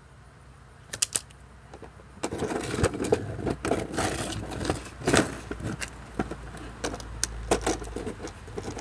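Handling noise on a phone's microphone: two clicks about a second in, then irregular rustling and knocking from about two seconds on.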